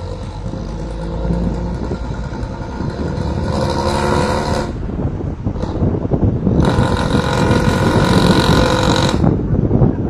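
Mercedes-Benz 1114 city bus's diesel engine roaring as it pulls along the street, surging louder twice as it accelerates: briefly about four seconds in, then for about two and a half seconds from around seven seconds.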